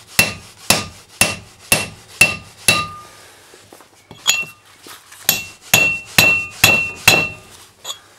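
Hammer blows on a bearing race driver, seating a new inner bearing race into the front wheel hub of a 1996 Dodge Ram 1500. The sharp metallic strikes come about two a second, each with a brief ring. They pause for about a second and a half near the middle, then run on again.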